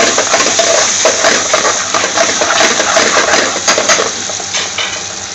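Sliced onions and garlic sizzling in hot oil in a metal frying pan, with a metal spoon stirring and clinking against the pan. The stirring stops about four seconds in, and the sizzle carries on more quietly.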